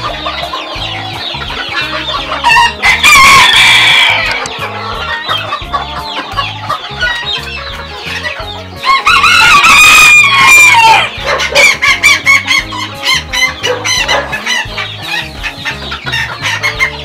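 Bantam roosters crowing twice, about three seconds in and again about nine seconds in, each a long call, the second sliding down in pitch at its end, over steady clucking from many hens in their pens.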